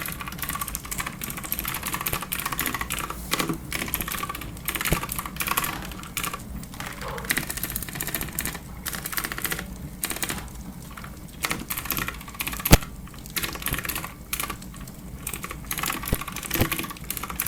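Clicky keyboard typed in fast, uneven runs of keystrokes with short pauses between them, and one louder, sharper click a little past the middle.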